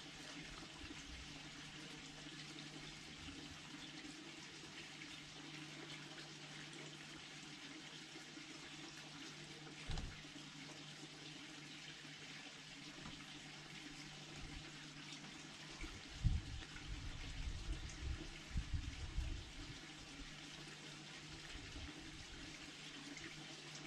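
Steady faint hiss with a low steady hum underneath, broken by a single dull low thump about ten seconds in and a run of dull low thumps a few seconds later.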